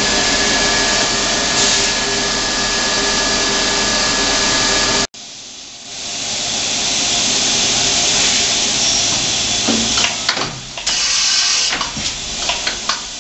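Fadal VMC 4525HT vertical machining center running with a loud, steady hiss that builds up over about a second. The hiss breaks off abruptly about five seconds in and builds up again a second later. Near the end, a run of sharp clicks and knocks sounds over the hiss.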